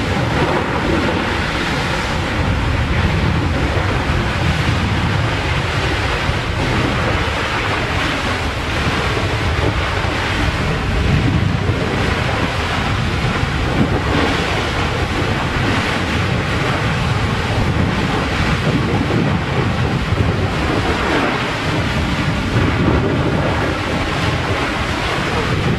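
Erupting lava vent spattering and fountaining, a steady deep rushing rumble with small swells in loudness, mixed with wind buffeting the microphone.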